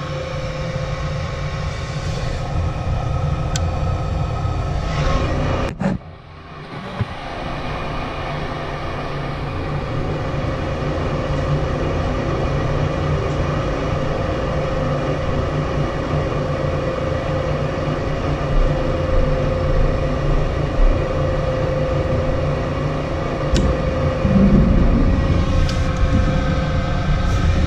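Lennox EL296 gas furnace running with its low pressure switch jumpered out: the inducer motor hums steadily over a low burner rumble, showing the furnace fires once the failed switch is bypassed. The sound dips briefly about six seconds in.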